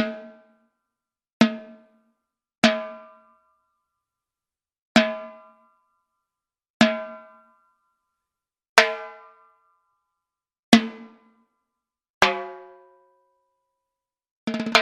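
Timbales struck with single hits every one and a half to two seconds, each hit ringing with a clear pitch and dying away within about a second; one hit about twelve seconds in sounds lower. Just before the end comes a quick flurry of strokes.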